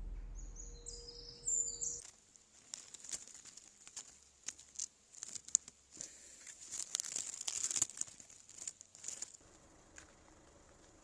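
Music fades out over the first two seconds, then dry fallen leaves rustle and crackle in faint, irregular clicks over a steady high hiss.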